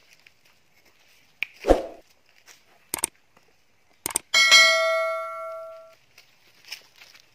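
Subscribe-button animation sound effect: a thud about a second and a half in, sharp clicks, then a bright notification bell ding a little past four seconds in that rings out for about a second and a half.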